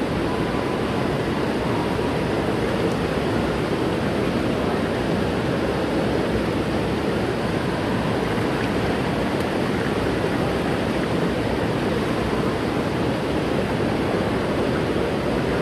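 Steady rushing water, an even unbroken wash of noise with no distinct splashes.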